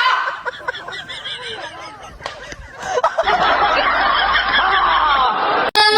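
Snickering laughter with short bursts of chuckling, becoming denser about three seconds in, then cut off abruptly near the end.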